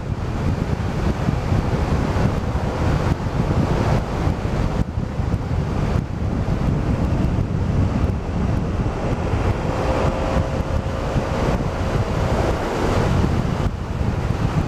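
Wind buffeting the microphone of a camera on a moving scooter rider, a steady loud rush, with the scooter's engine and road noise underneath and a faint whine about ten seconds in.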